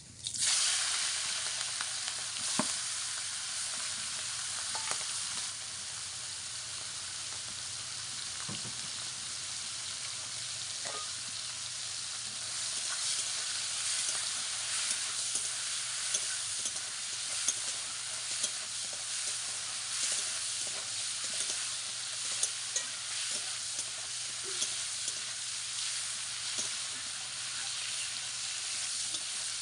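Small prawns frying in hot oil in a metal karai: a sizzle that starts suddenly as they go into the oil and keeps up steadily, with small crackles and the scrape of a spatula stirring them.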